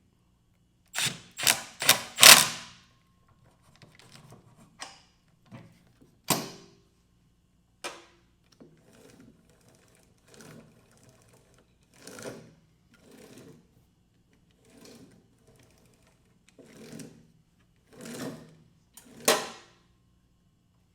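Milwaukee cordless impact wrench with a 16 mm socket hammering in about four quick bursts a second in, running down a nut, followed by scattered quieter knocks and short bursts as the work goes on.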